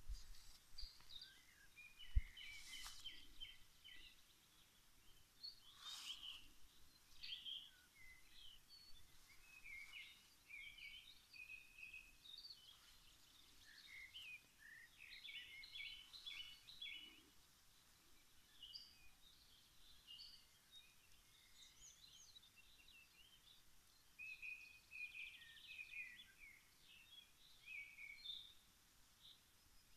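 Faint songbirds singing, many short chirping notes throughout. A single brief thump about two seconds in.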